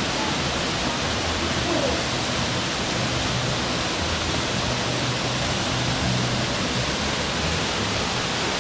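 Waterfall rushing steadily, an even hiss of falling water with no let-up.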